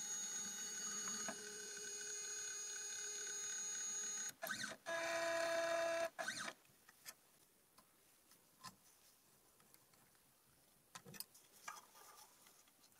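Stepper motors of a Sainsmart 3018 PROVer mini CNC driving its axes through the homing cycle: a steady whine for about four seconds, a few short moves, then a second whine at a different pitch that stops at about six seconds in. Faint handling clicks follow near the end.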